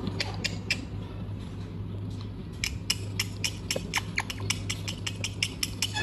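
Indian ringneck parakeet making sharp beak and tongue clicks, a few at first and then about five a second through the second half, over a steady low hum.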